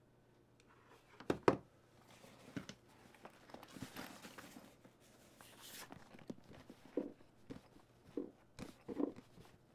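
Handling of a soft-sided fabric cooler bag: a couple of sharp clicks about a second and a half in, then fabric rustling, then several soft knocks near the end as the bag is set down on a platform scale.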